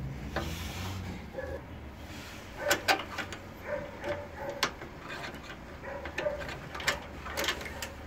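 Sharp clicks and knocks of push-on spade terminals being pressed onto a microwave oven's high-voltage capacitor by hand, with short squeaks of the parts and wires being worked, over a steady low hum.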